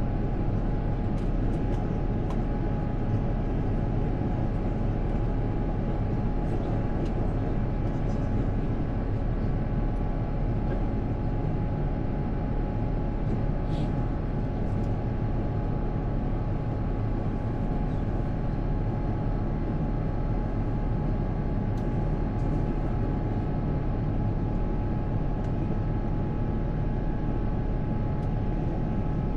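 Steady cabin noise of a jet airliner in flight: an even drone of engines and airflow with a faint steady tone running through it, and a few faint clicks.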